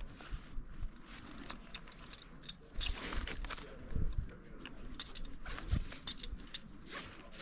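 Carabiners and other metal climbing gear clinking and jingling in short, irregular bursts as they are handled at a climbing anchor.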